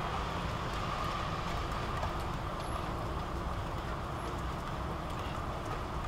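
Steady outdoor ambience of a city during a snowfall: an even hiss over a low rumble, with a few faint ticks.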